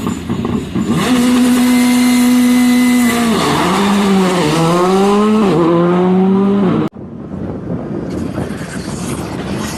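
Rally car engine running hard at high revs: a steady, held note from about a second in, then the pitch dips and climbs several times as the revs change. It cuts off abruptly about seven seconds in, giving way to a duller rumble of wind-like noise.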